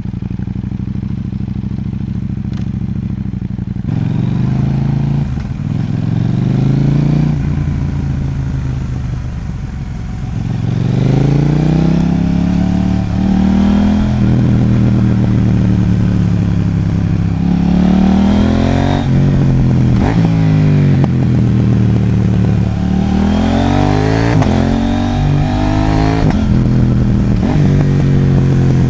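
KTM Duke 790's parallel-twin engine, fitted with a Sprintfilter P08 air filter and a Mivv exhaust, running on a ride. It runs steadily for about four seconds, then accelerates through the gears several times, each rise in pitch dropping back at a shift.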